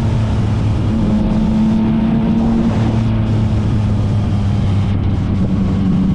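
Yamaha MT-09's three-cylinder engine running through an aftermarket Akrapovic exhaust, holding a steady note that shifts a little in pitch every second or two.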